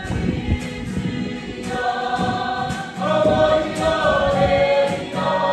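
A group of voices singing together in a choir, holding long notes in several parts from about two seconds in.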